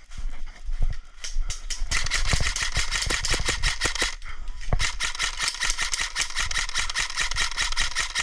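Airsoft gun firing on full auto: a rapid stream of shots starting about two seconds in, a brief pause around four seconds, then another long burst of several seconds.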